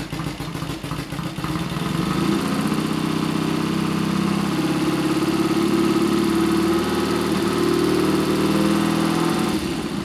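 Triumph 650 parallel-twin engine revved up from idle over the first couple of seconds and held steady at raised revs, about 2,500 rpm, so that the electronic ignition is in full advance for strobe timing. The revs ease back slightly near the end.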